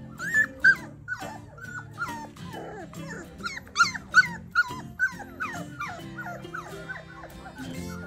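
Four-week-old Bernedoodle puppies whining and yipping: a quick run of short, high cries that slide down in pitch, several a second, over background music.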